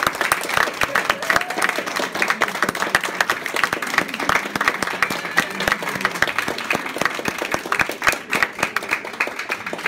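Small crowd applauding: dense, continuous hand clapping.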